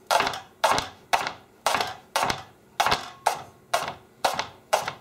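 Chef's knife slicing a leek into rounds on a plastic cutting board, a crisp crunch and tap with each cut, about two cuts a second.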